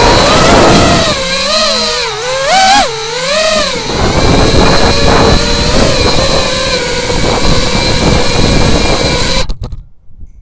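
Small multirotor drone's electric motors and propellers whining loudly close to the microphone, the pitch rising and falling with the throttle, over a rushing noise. About nine and a half seconds in, the motors cut off abruptly with a few clicks as the drone sits landed and the motors stop.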